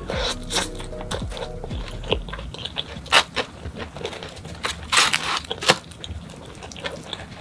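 Close-miked chewing and crunching of pizza crust, with louder crisp crackles as the crust is torn apart by hand.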